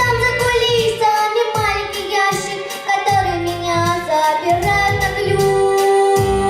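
Pop song with a girl singing over a backing track with a steady bass and drum beat.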